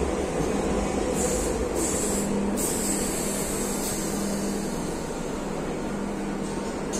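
Madrid Metro Serie 5500 train pulling into the platform and slowing to a stop. It is a steady running rumble with a hum, broken by several short hisses in the first half.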